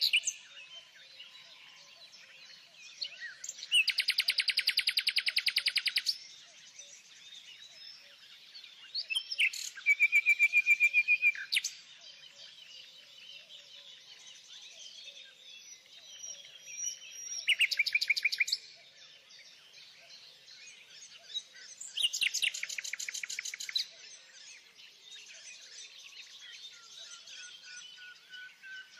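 Songbirds singing: four loud trilled phrases of rapidly repeated notes, each one to two seconds long and several seconds apart, over steady fainter chirping.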